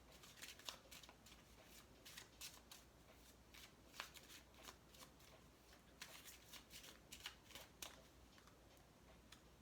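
An oracle card deck being shuffled by hand: a faint, quick run of card flicks and riffles that thins out near the end.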